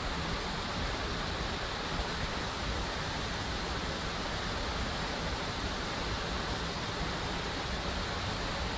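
Steady rushing of a waterfall cascading over boulders in a rocky mountain river.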